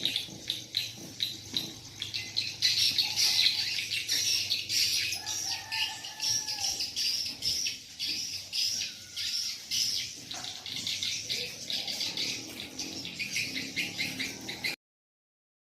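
Many swiftlets twittering in a dense, rapid stream of high chirps: swiftlet-house lure and roosting calls. The sound cuts off suddenly near the end.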